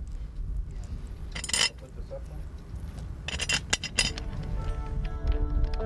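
Sharp metal clinks and knocks from parts of the well casing being fitted: one about a second and a half in, then several close together a little past the middle. Background music comes in at about four seconds.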